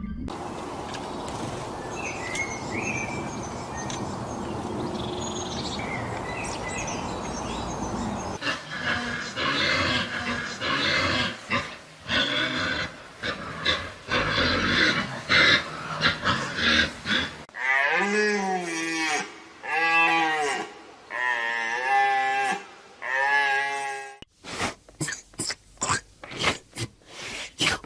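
Farm animals calling in a series of separate clips: a steady noisy stretch with faint chirps, then a run of repeated loud calls, then pitched calls that rise and fall, and near the end a fast run of short clicks.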